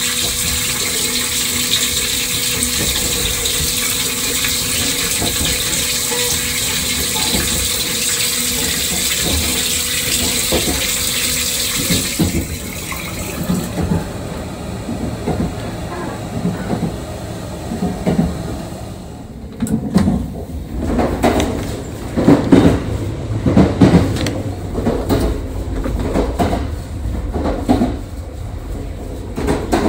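Steady rush of running water with a pump hum from the washroom plumbing aboard a JR 681 series limited-express train, cutting off about twelve seconds in. After it, the train's running noise: a rumble with irregular thumps.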